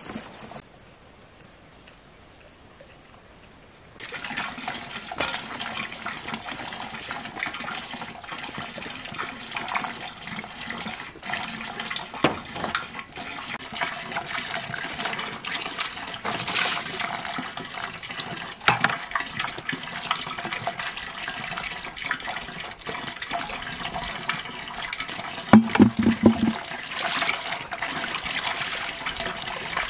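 Water running and splashing, an even rushing noise flecked with small splashes and clicks that starts suddenly a few seconds in. Near the end there is a short, louder low-pitched sound.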